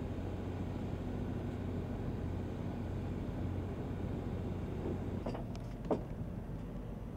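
Steady low engine hum with a strong low drone that drops away about five seconds in, followed by a single sharp knock about six seconds in.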